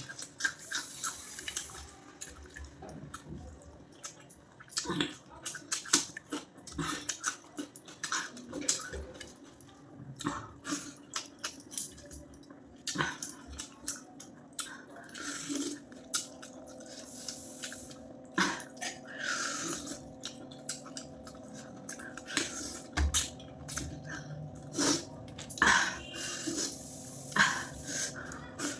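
A person eating puffed rice and rice with chutney close to the microphone: wet chewing and lip smacking, with many short, irregular clicks and smacks.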